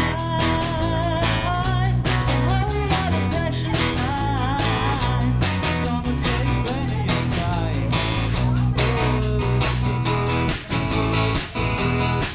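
Small band playing live: a strummed acoustic guitar and an electric guitar under a lead singer, with a second voice singing along. The low end drops away briefly about ten seconds in.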